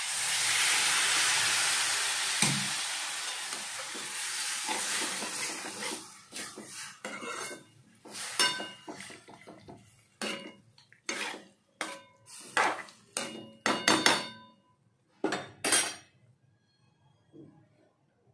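Water hits the hot oil and spices in a kadhai of potatoes and sizzles loudly at once, the hiss fading over several seconds. Then a metal spoon scrapes and clinks against the aluminium pan, about a dozen ringing strokes, as the potato curry is stirred, stopping near the end.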